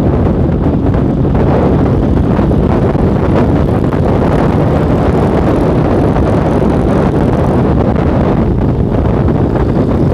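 Steady wind rush on the microphone while riding a Honda motorcycle at speed, with the bike's engine running underneath at an even pace.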